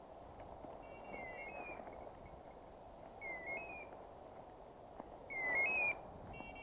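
Electronic beeper collar on a hunting dog sounding a short stepped rising chirp about every two seconds, over the rustle of someone walking through dry leaves and brush that grows louder near the end.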